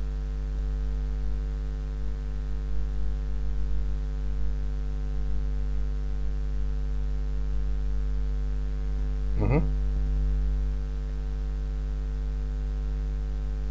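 Steady electrical mains hum, a low buzz with its overtones, picked up in the recording. About nine and a half seconds in there is one short rising vocal sound.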